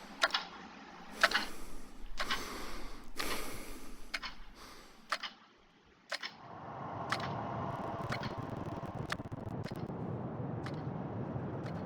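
A series of sharp mechanical clicks, roughly a second apart, then a brief drop to near silence about halfway through, after which a steady rushing noise sets in with more single clicks on top.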